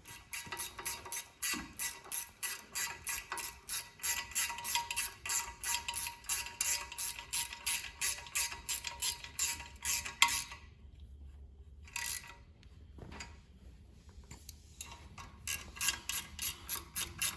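Hand ratchet wrench clicking in quick back-and-forth strokes, turning a bolt on the engine's motor-plate mounting; it stops twice near the end and then starts again.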